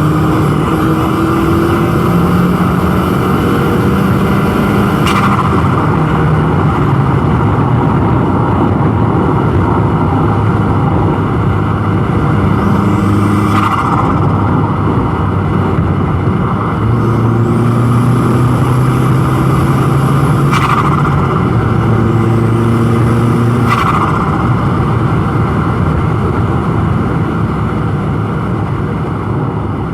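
Turbocharged Volkswagen Golf GTI 1.8T four-cylinder accelerating hard, its engine note climbing and dropping through the gears. A high turbo whistle builds under load and cuts off sharply at each lift-off, about four times, with a short burst of turbo flutter.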